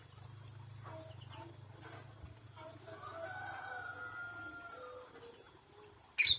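A rooster crowing, one long call about three seconds in that falls slightly in pitch at its end, over a low steady hum. Near the end a single sharp click is the loudest sound.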